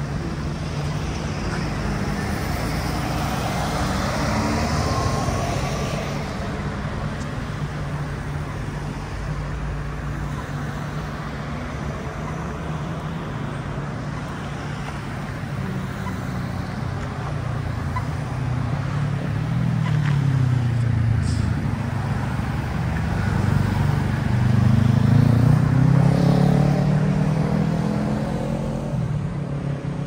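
City street traffic: cars and an articulated bus driving past with engines running and tyre noise. The loudest passes come in the last third.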